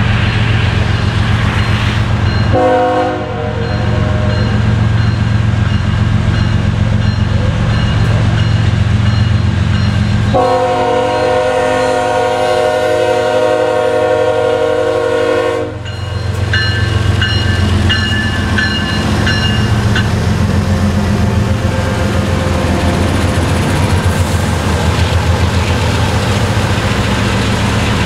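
A BNSF GE ES44C4 diesel locomotive leading a freight train through a grade crossing, sounding its air horn in a short blast about two and a half seconds in, then a long blast of about five seconds starting around ten seconds in. The engine's steady low drone runs under the horn as it passes, and the crossing bell dings.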